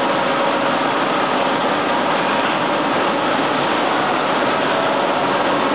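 Machinery of a 15-tonne-a-day buckwheat processing line running: a steady, loud mechanical drone with a faint constant hum through it.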